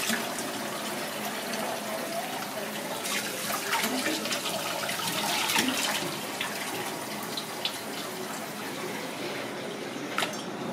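Kitchen tap running into a steel bowl in a stainless steel sink, with splashing as hands rinse and squeeze pieces of monkfish in the stream. The splashing is busiest from about three to six seconds in. A single sharp click comes near the end.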